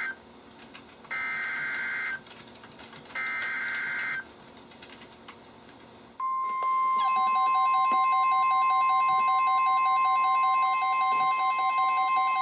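NOAA Weather Radio Emergency Alert System (SAME) header data bursts: short warbling digital tones repeated at about one-second intervals. About six seconds in, the steady 1050 Hz warning alarm tone starts. About a second later several weather radio receivers join it with their own beeping alert alarms.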